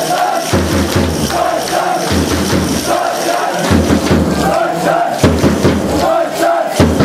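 Spectators chanting in a steady rhythm, with a low thump about every one and a half seconds.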